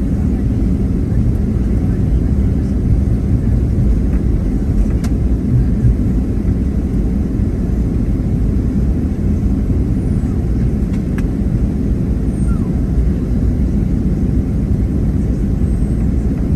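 Steady low rumble inside the cabin of a Boeing 737-700, from its CFM56-7B turbofan engines and the airframe, with a couple of faint ticks.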